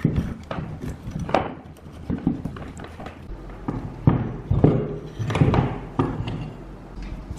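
Irregular metallic knocks and thuds as an old electric fan motor is taken apart by hand, its metal end housing pulled off the stator and the parts knocked against and set down on a concrete floor. The heaviest knocks fall between about four and five and a half seconds in.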